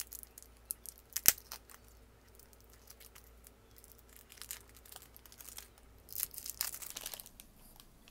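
Clear cellophane shrink-wrap being torn and peeled off a deck of tarot cards: a run of sharp crackles and crinkles, the loudest a snap about a second in, with a denser stretch of crinkling about six seconds in.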